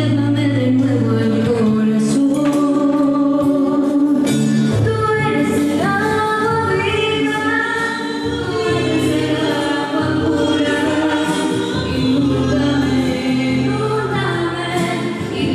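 A choir singing a slow church hymn, with sustained low notes held beneath the voices.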